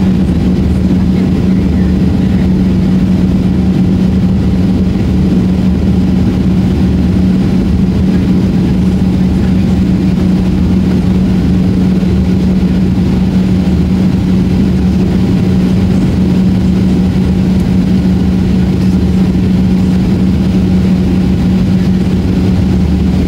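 Steady drone of a Boeing 737 heard from inside the passenger cabin: engine and airflow noise with a constant low hum that does not rise or fall.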